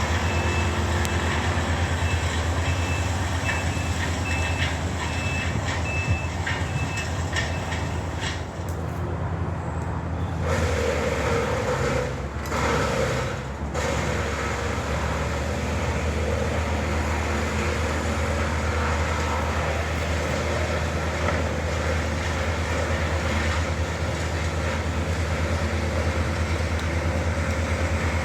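Heavy demolition machinery running steadily with a deep engine hum: the machine that breaks the demolished timber into pieces. A vehicle's reversing alarm beeps repeatedly for the first several seconds.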